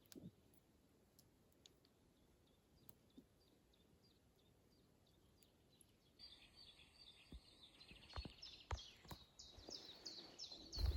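Faint bird chirping: a run of short high notes repeated a few times a second, clearer from about six seconds in. Soft footsteps on a forest path start near the end.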